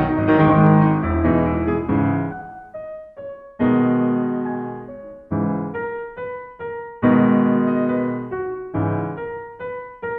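Background piano music: a busy passage of chords for the first couple of seconds, then slower struck notes and chords, each dying away.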